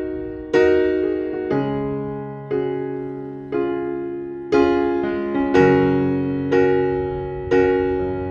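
Background music: slow electric piano chords struck about once a second, each left to ring and fade.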